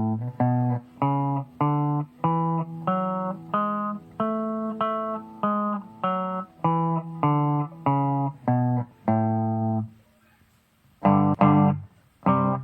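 A pre-recorded guitar loop played back from a Ditto looper through a Line 6 amp on its clean channel, dry with no effect applied. It is a line of single picked notes, about two a second. The loop stops about ten seconds in and starts over a second later.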